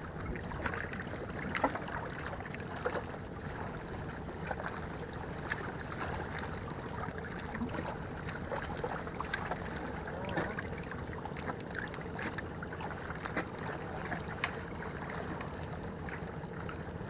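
Small sea waves lapping and splashing against concrete breakwater blocks: a steady wash with many small sharp splashes scattered throughout.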